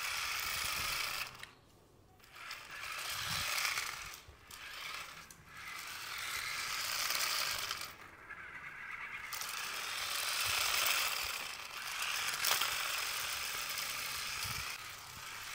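Battery-powered 1:43-scale four-wheel-drive RC short-course truck's small electric motor and gears whirring and rattling in short runs as it is driven, with brief pauses between them.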